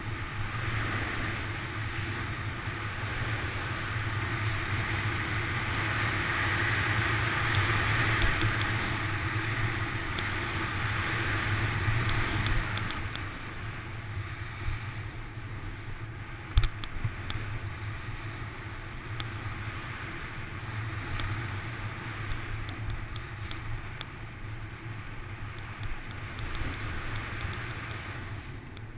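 Wind rushing over a helmet-mounted camera, mixed with the hiss and scrape of snow sliding underfoot on a downhill run. It grows louder in the first half, eases off after that, and a sharp knock comes a little past halfway.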